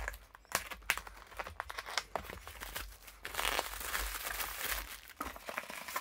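Cardboard box being cut open and its paper packing crinkled as it is pulled out: scattered sharp clicks and scrapes at first, then from about three seconds in a denser rustle of crumpling paper.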